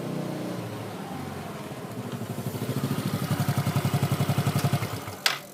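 Motorcycle engine running with a lumpy, fast pulsing beat that grows louder for a few seconds, then fades and is cut off by a single sharp crack near the end.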